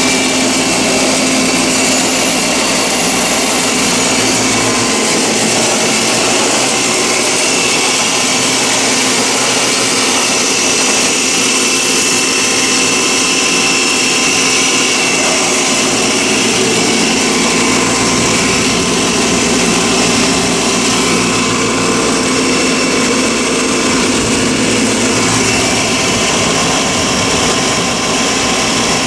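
3 HP belt-driven rotary screw air compressor running steadily under a light load from a throttling restriction, with a steady hum and a high whine from the screw element and its electric motor.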